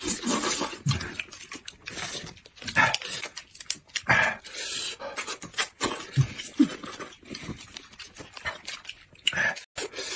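Two people sucking and slurping fruit jelly out of small squeeze packets: a run of wet, irregular slurps and sucks with breathy intakes.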